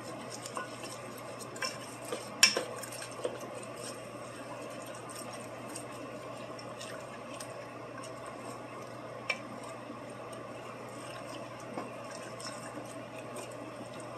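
Wooden spoon stirring a wet mix of sausage, vegetables and water in an enamel Dutch oven, with a few sharp knocks of the spoon against the pot, the loudest about two and a half seconds in. A steady low hum runs underneath.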